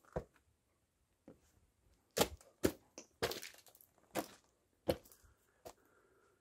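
Footsteps crunching on gravel and rock: a string of irregular, sharp steps, some with a short scrape.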